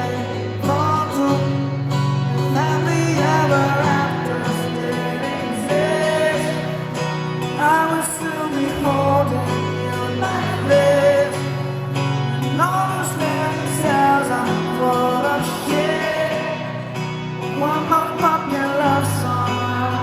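A pop band playing live, with singing over steady bass and guitar chords.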